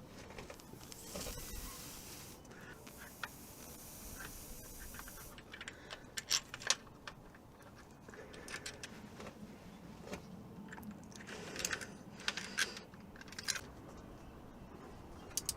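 Small metallic clicks, taps and scrapes of hand tools and bolts being handled while a hydraulic timing-chain tensioner is fitted to an engine. The clicks come in scattered clusters, thickest about six seconds in and again from about eleven to thirteen seconds.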